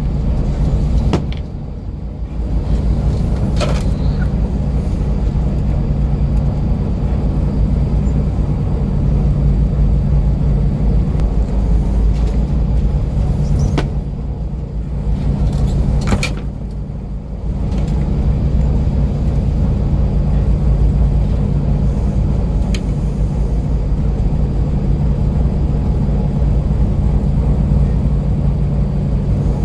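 Steady low drone of a coastal cargo ship's engine heard from inside the vessel, dipping briefly twice, with a few sharp clicks scattered through it.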